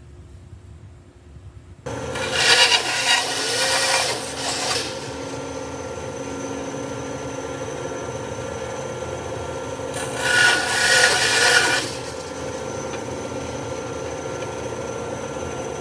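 Benchtop band saw running steadily, with two louder stretches of a couple of seconds each as the blade cuts through small wooden blocks.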